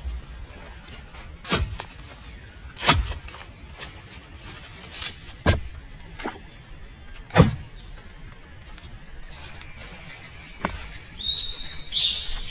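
A series of sharp knocks, four loud ones a second or two apart and a fainter one later, with a bird chirping near the end.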